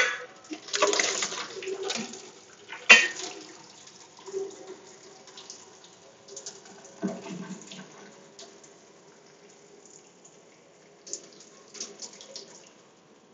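Cooking water being strained off a pot of stewed rhubarb, splashing out in the first couple of seconds. Sharp knocks of the pot come at the start and again about three seconds in, then fainter clinks.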